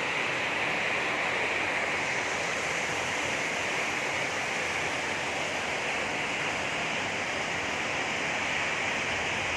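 Heavy rain falling, a steady, even rushing hiss.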